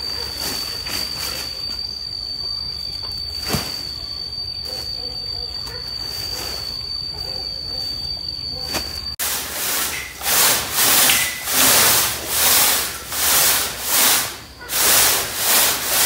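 Disinfectant being sprayed from a sprayer: a loud hiss that swells and fades about one and a half times a second, starting about nine seconds in. Before it, faint rustling and a single knock over a steady high whine.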